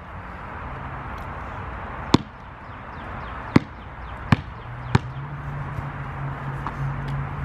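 A basketball bouncing on the driveway: four sharp bounces from about two seconds in, coming closer together as the ball loses height.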